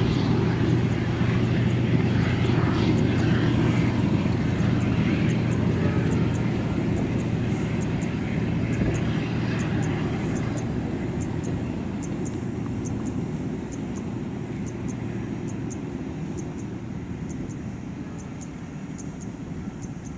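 Diesel locomotive hauling a passenger train, its engine drone and the rumble of the train running steadily and fading gradually as it moves away.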